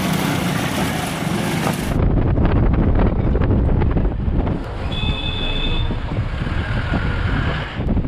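A road vehicle on the move, with steady engine and road noise. About two seconds in the sound changes abruptly to a duller, heavy low rumble, like wind buffeting the microphone. A brief steady high tone sounds about five seconds in.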